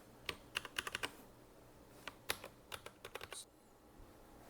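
Keys pressed on a KEMOVE K98SE mechanical keyboard with pre-lubed red linear switches: two bursts of quick, sharp keystroke clicks, stopping about three and a half seconds in.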